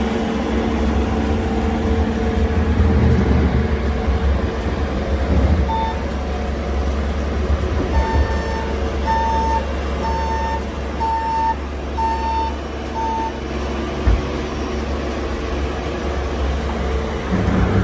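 A heavy vehicle's reversing alarm beeping about once a second for several seconds over the steady low running of its engine, with a single further beep near the end.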